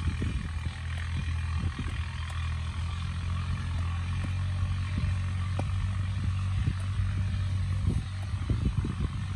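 Hatchet blade chopping into hard, stony soil, irregular sharp knocks with a cluster near the end. Under it runs a steady low mechanical drone.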